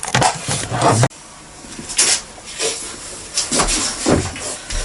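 Handling noises: rubbing, scraping and light knocks of small fixings and boards being handled. A denser stretch cuts off sharply about a second in.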